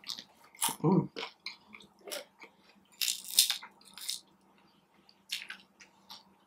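Close-up crunching and chewing of a crisp fried taquito, in a few short crackly bites and chews, the loudest run about three seconds in. A brief voiced sound from the eater about a second in.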